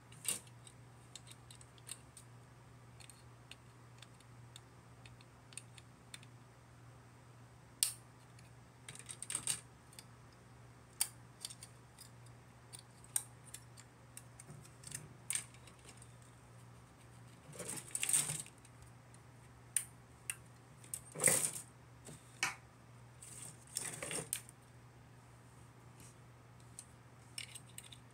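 Scattered sharp plastic clicks and snips: model-kit parts being cut from the plastic runner with hobby nippers and handled. A few louder spells of clicking and rattling come in the second half, over a faint steady hum.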